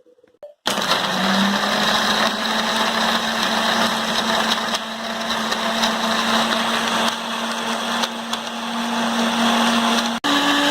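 Electric blender running, grinding grapes, sugar and ice cubes into juice. It starts just under a second in and runs steadily, then cuts out for an instant near the end and restarts at a higher pitch.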